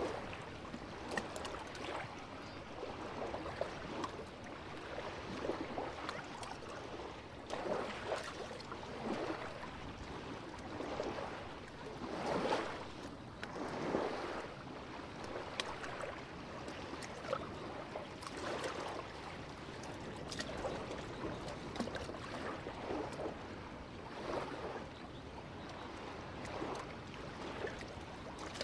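Small waves of the calm Baltic Sea lapping and splashing at the water's edge, a soft irregular slosh every second or two.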